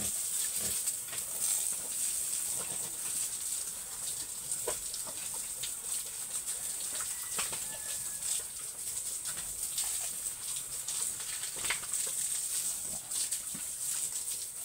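Domestic pigs moving about a wet pen, with scattered short grunts and splashy steps, over a steady high-pitched drone.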